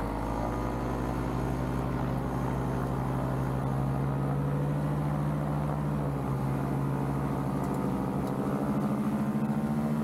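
Powered paraglider trike's engine and propeller running steadily at high power, the pitch rising slightly near the end. The motor is not yet warmed up.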